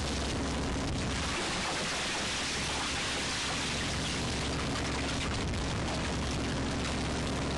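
Steady rush and patter of seawater draining from the hoisted trawl net onto the deck and catch, over the low steady hum of the trawler's engine.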